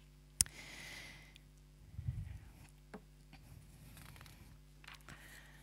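Quiet pause at a lectern: faint steady hum with a sharp click about half a second in, then soft rustling and a few light knocks and thuds from notes being handled.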